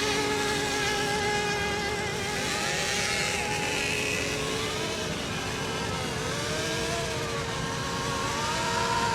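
Several radio-controlled racing boats' motors whining on the water during the milling period before a race start: a few steady tones, with other tones rising and falling in pitch.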